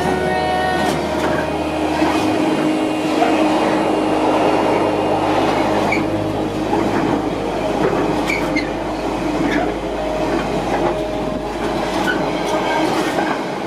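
Container freight train's wagons running past at speed: a steady, loud rush and rumble of wheels on rail, with occasional faint clicks.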